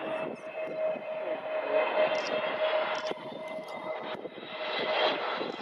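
Airbus A320neo airliner passing low on final approach with its landing gear down, its jet engines giving a steady whine over a rushing noise. The whine fades near the end.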